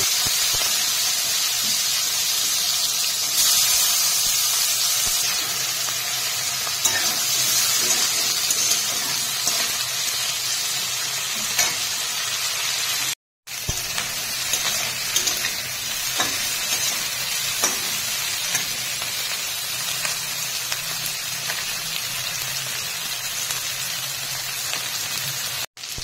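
Prawns frying in hot mustard oil in a metal kadai: a steady high sizzle, with scattered sharp clicks and scrapes of a metal spatula stirring them. The sound cuts out for a moment about halfway and again near the end.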